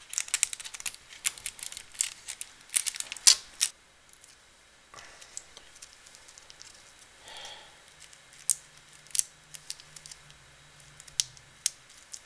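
Clicks and rattles of small plastic wire connectors being pushed home on an LCD monitor's circuit boards, many in quick succession for the first few seconds, then scattered single clicks and light handling of a ribbon cable.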